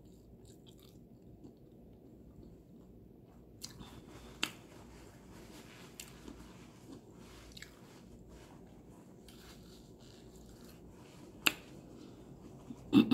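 Quiet, close-miked chewing of Popeyes fried chicken, with a few sharp crunches or mouth clicks, the loudest about eleven seconds in.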